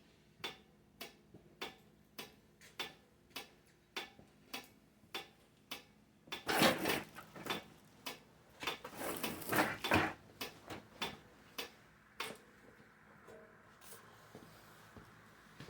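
Railroad signal flasher relay clicking steadily, about one click every 0.6 s, as it would while flashing the signal lamps. In the middle there are a few seconds of louder rustling and handling noise, and the clicking stops a little over halfway through.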